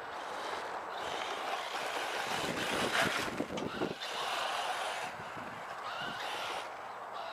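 Kyosho Inferno VE electric RC buggy driving over loose wood-chip mulch, a rough rushing noise of tyres and motor that swells around the middle, mixed with wind buffeting the microphone.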